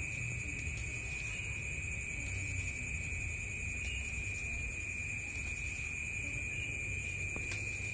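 Steady high-pitched ringing of night insects, several held tones at once, over a low rumble.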